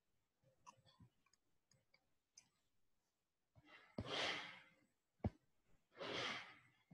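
A person exhaling twice, two long breaths out about two seconds apart, with a sharp click just before the first and another between them; faint small clicks before.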